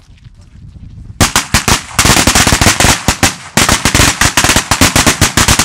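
Rapid volley of loud firecracker bangs, many to the second, starting about a second in, pausing briefly halfway, then stopping abruptly near the end.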